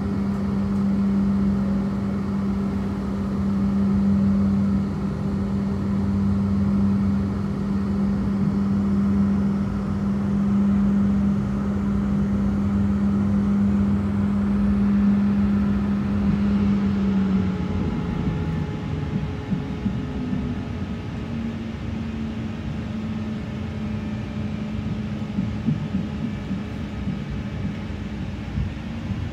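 Tram running along the street, heard from inside: a steady rumble with a constant motor hum that wavers and drops away about two-thirds of the way through, then returns fainter and slightly higher.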